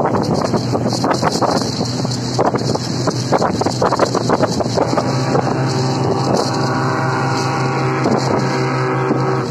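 Outboard motor of a rigid inflatable boat running under way with a steady hum. The hull slaps on the chop in a run of short knocks through the first half. Wind buffets the microphone.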